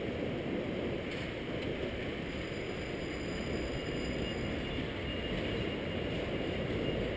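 A Hong Kong double-decker tram running steadily along its street track, heard from the upper deck: a steady low rumble with air rushing past.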